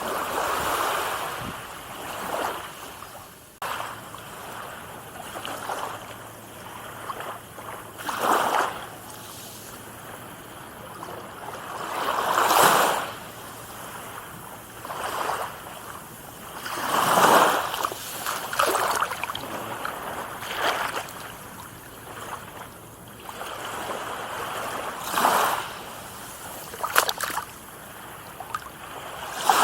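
Small waves breaking and washing in at irregular intervals of a few seconds, each swell rising and falling, over a steady sea hiss.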